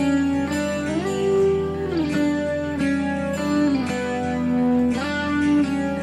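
Background music: a plucked guitar melody whose notes slide up and down from one pitch to the next, over a steady low accompaniment.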